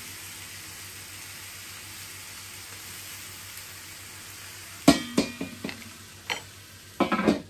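Steaks and sausages sizzling steadily on a George Foreman electric grill plate. From about five seconds in, a metal utensil clinks and scrapes against the grill several times, with a louder cluster of clatter near the end.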